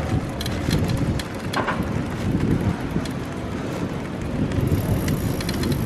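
Wind buffeting the microphone over a steady rush of road and traffic noise, with scattered light clicks.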